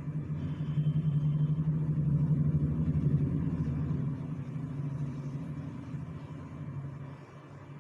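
A low motor rumble that builds over the first few seconds and fades toward the end.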